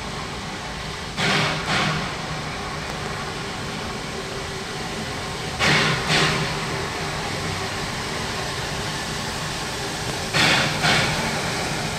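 Black Hills Central Railroad steam locomotive working, a steady rush of noise broken by three paired chuffs about four and a half seconds apart.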